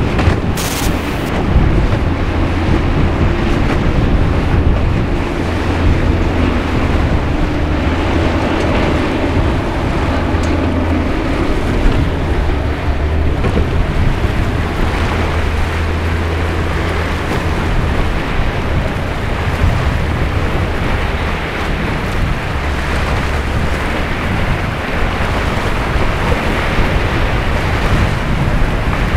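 Wind buffeting the microphone in gusts over the steady rush of surf and breaking waves.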